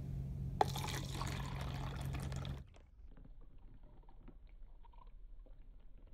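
Water poured from a plastic cup into a clear plastic cup: a sharp tap, then a loud rushing splash that cuts off suddenly about two and a half seconds in. Faint drips and trickling follow as the water runs out through the hole in the cup's base.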